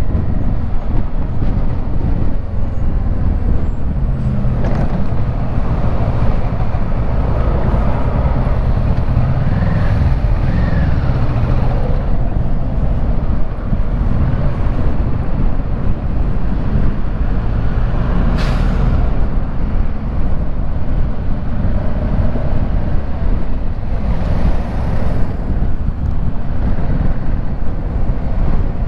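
Kawasaki Versys 650 parallel-twin engine running under way in traffic, heard from the rider's seat along with wind rush and road noise; the engine note rises and falls around ten seconds in. A brief sharp hiss about eighteen seconds in.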